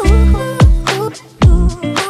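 Background music: deep bass drum hits under a melody of pitched notes, some of them bending in pitch.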